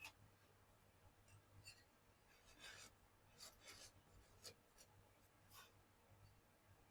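Near silence, with a scatter of faint, brief scrapes and light taps over a low steady hum.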